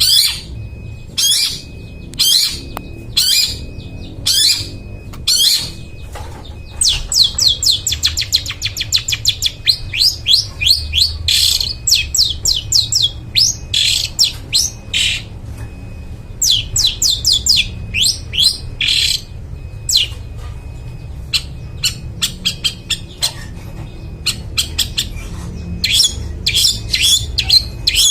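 Long-tailed shrike (cendet) singing: harsh calls about once a second, then long, fast chattering runs of quick rising notes that come in bouts with short pauses between. A steady low hum lies underneath.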